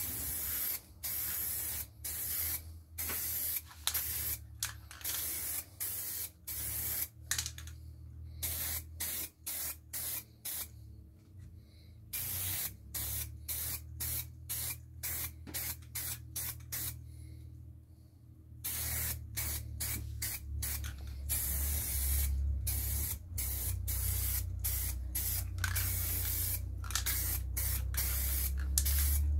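Aerosol spray-paint can spraying in many short hissing bursts, about one to two a second, with a few longer pauses. A steady low hum runs underneath.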